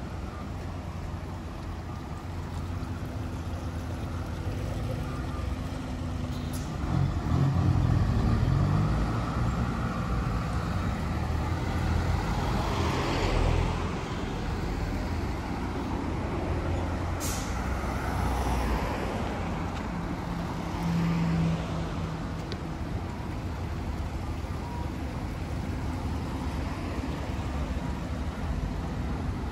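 Road traffic passing on a street: engines of cars and heavier vehicles such as trucks or buses rumble by, loudest about seven to nine seconds in and again around thirteen seconds, with a brief sharp hiss about seventeen seconds in.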